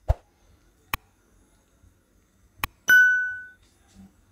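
Subscribe-button animation sound effect: three sharp mouse-click sounds, then about three seconds in a single bell-like ding that rings and fades out over about half a second.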